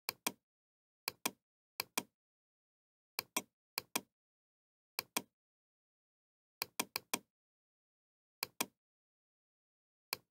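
Computer mouse clicking: sharp clicks, most in quick pairs of press and release, coming irregularly about every second or so, with a quick run of four clicks near the middle.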